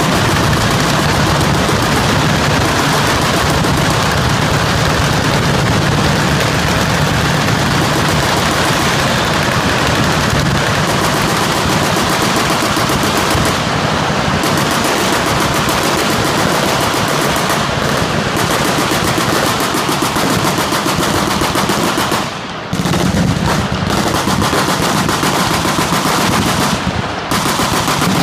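Fully automatic machine guns firing in dense, nearly unbroken bursts, the shots overlapping so the fire runs almost continuously, with two brief lulls late on.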